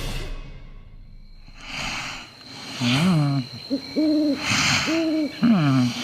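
Cartoon snoring sound effect: breathy intakes alternating with short hooting voiced tones, four or five in quick succession in the second half, some rising and falling in pitch, some held level.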